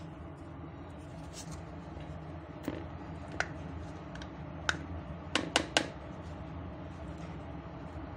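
Plastic yogurt pot knocking against a plastic mixing bowl as the yogurt is emptied out: a few scattered sharp clicks, then three quick taps about two-thirds of the way through, over a steady low hum.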